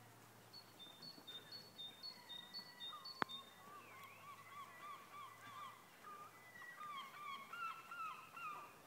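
Birds calling: a quick run of short, high two-note chirps in the first few seconds, then a longer series of lower, wavering calls. A single sharp click about three seconds in.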